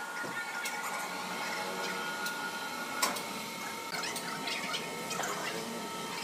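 Steady hum of sawmill machinery with a thin high whine, over scattered clicks and knocks from the timber being handled. One sharp knock comes about three seconds in.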